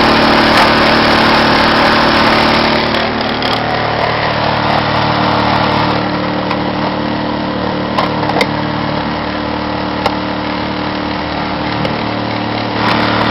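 Champion 2000-watt inverter generator (model 73535i) running steadily, housed in a wooden hitch-box enclosure. A few short clicks sound about two-thirds of the way through.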